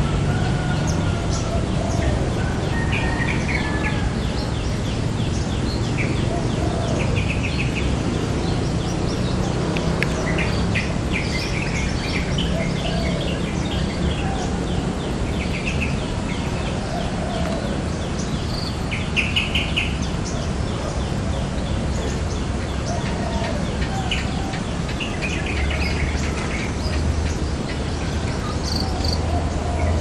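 Yellow-vented bulbuls calling: short chirping phrases repeated every few seconds, over a steady low hum.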